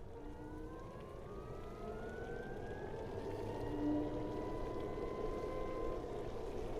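BMW CE 04 electric scooter's drive whine rising in pitch as it accelerates over the first few seconds, then holding steady, over a hiss of road and wind noise.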